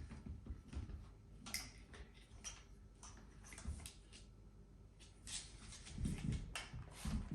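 Scattered clicks, light scrapes and a few low knocks of a travel tripod and its Arca-type quick-release parts being handled and fitted by hand, with the heaviest knocks near the end.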